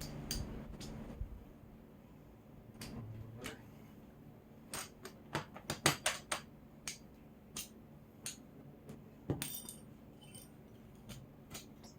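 Scattered sharp metallic clicks and clinks, several in quick succession around the middle: small hardware and tools being handled during woodworking.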